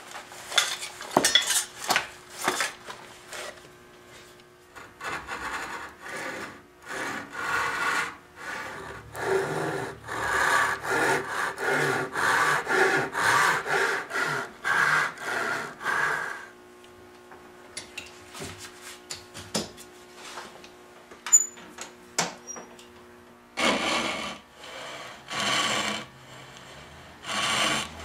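Hand saw cutting into the end of a wooden furniture stretcher in rapid back-and-forth strokes, cutting away broken wood so a new piece can be glued on. Sawing stops for several seconds past the middle, then starts again near the end.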